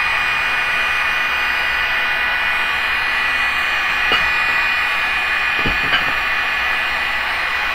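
Electric heat gun running steadily, a fan whine over rushing hot air, heating a smoked plexiglass lens to soften it for bending. Two light knocks, about four and six seconds in.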